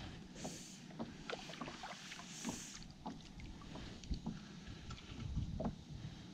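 Plastic fishing kayak on open water: water lapping at the hull with scattered light knocks and clicks, and two brief hissing rustles in the first three seconds.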